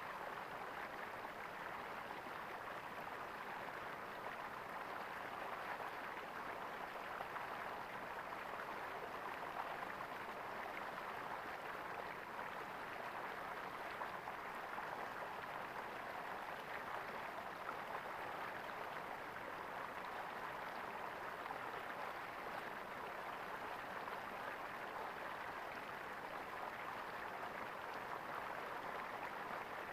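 Gurgling stream water running steadily over stones.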